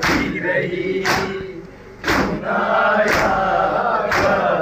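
Men chanting a noha in unison while beating their chests together in matam. The hand strikes on chests land about once a second, sharp and together. The chanting dips briefly midway, then resumes.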